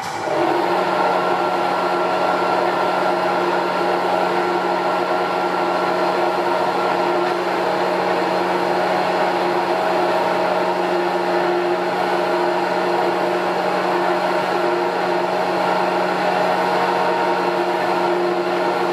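Electric drive of a Petzholdt PDSM double-screw mixer switching on just after the start and running steadily, a hum with a mix of fixed whining tones. One higher whine drops out about seven seconds in while the rest runs on unchanged.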